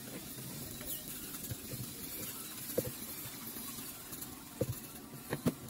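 Pedicure scrubbing: a metal foot file, then a pumice stone, rasping against the sole of a foot, with a few light knocks of the tools.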